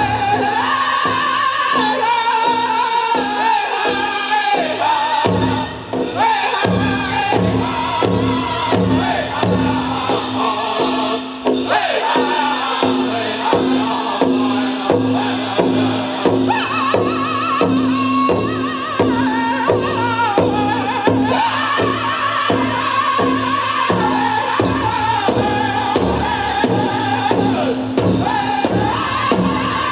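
Powwow drum group singing a chicken dance song, several men's voices together in a high, sustained chant over the steady beat of a big drum.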